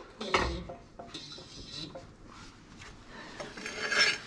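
Steel clinks and knocks from a hole-punch and flanging die being worked in a 20-ton workshop press: a sharp knock just after the start, lighter clicks, then a louder metallic clatter near the end.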